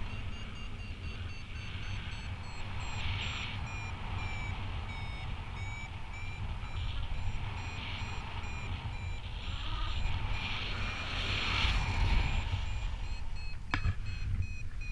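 Paragliding variometer beeping at a slow, even pace of about one beep a second, its pitch drifting slightly down and then up again; the beeps signal a weak climb in a thermal. Wind rumbles on the microphone throughout, and there is a single sharp click near the end.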